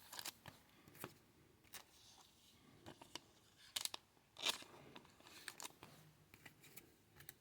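Faint, scattered clicks and rustles of trading cards and card-pack wrappers being handled, the loudest about four seconds in.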